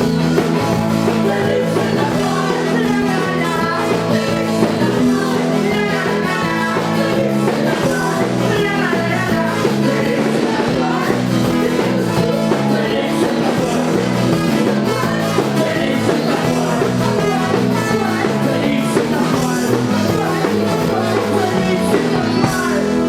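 Live ska-punk band playing with a steady bass line, guitars and drums, and some singing.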